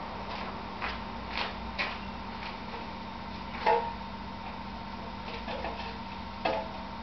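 A few light clicks and knocks, then two louder metallic clinks with a short ring, one about halfway and one near the end, as steel shuriken and the metal target are handled at a wooden post.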